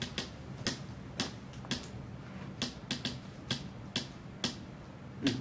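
Sharp taps beating out the rhythm of a tune, about two a second with a quicker run of three near the middle, as a song is tapped for listeners to guess.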